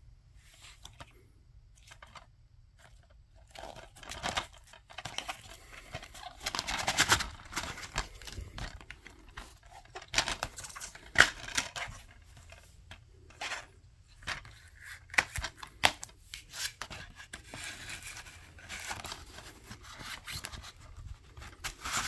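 Plastic DVD case being handled, opened and closed, with irregular clicks, snaps, scraping and rustling. A sharp click about halfway through is the loudest.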